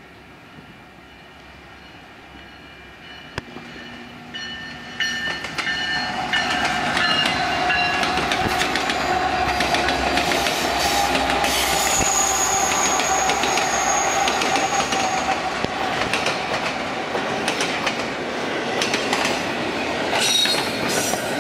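Union Pacific intermodal freight train passing, faint on approach and loud from about five seconds in as its diesel locomotives go by, followed by double-stack container cars. The wheels clack steadily over the rail joints and squeal with long steady tones on the curved track.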